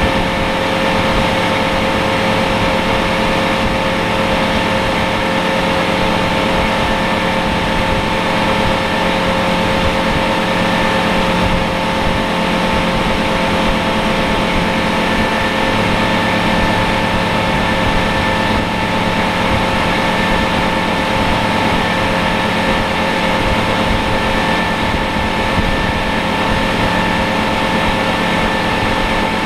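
Boat engine running steadily at speed, a constant whine over the rush of wind and water past the hull.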